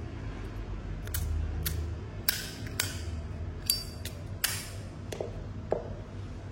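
Zippo lighters being handled: a series of about eight sharp metal clicks and clinks, some with a short bright ring.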